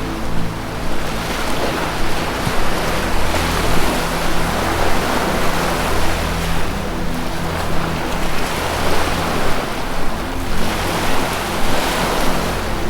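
Ocean surf washing in and out, the rush of the waves swelling and falling back every few seconds, over a soft, steady low music drone.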